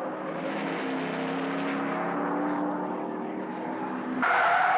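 Racing car engines running at speed, their note rising a little and falling back. About four seconds in, a louder, higher-pitched sound cuts in abruptly.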